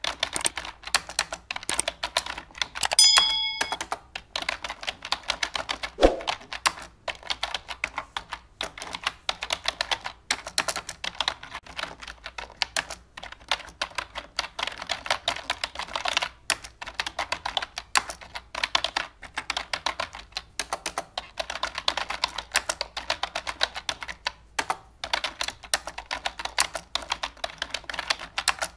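Fast computer keyboard typing, a dense run of key clicks without a break. About three seconds in a short ringing chime sounds, and a sharp thud comes about six seconds in.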